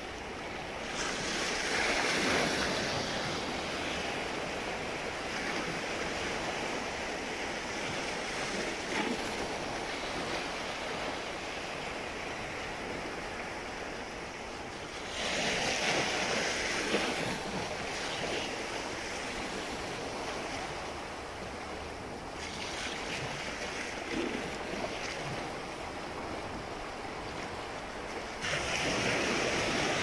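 Small waves on a calm sea breaking and washing up the beach. There are four louder surges of surf, each rising and then fading away, over a steady wash.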